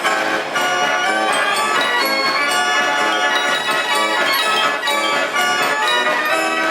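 Wellershaus fairground organ playing a tune, with many held notes sounding at once and high chiming notes over them.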